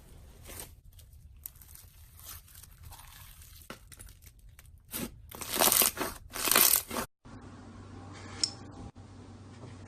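Slime being handled, giving crackling, tearing sounds in a string of loud bursts from about five to seven seconds in, which cut off abruptly; quieter handling noise after.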